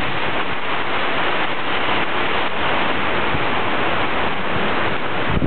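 Torrential rain pouring down in a steady, loud hiss, with a gust of wind buffeting the microphone at the very end.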